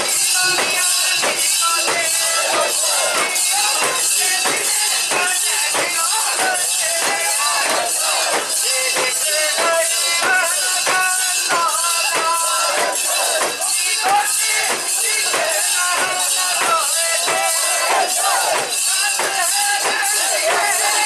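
A mikoshi's metal rings jingling in a steady beat about twice a second as the bearers jostle it, with a crowd of bearers chanting along.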